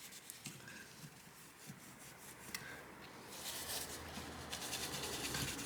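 Soft rubbing as old thermal paste is wiped off a GeForce GTX 1650 graphics card with isopropyl alcohol. The scrubbing gets louder and more continuous from about three seconds in.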